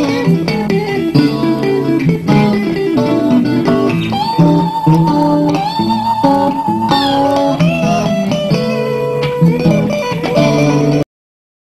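Guitar music over the end credits, cutting off abruptly just before the end.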